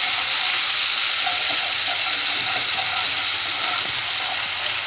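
Hot oil sizzling loudly in a kadai with tempering spices and asafoetida mixed with water. It gives a steady hiss that eases slightly near the end.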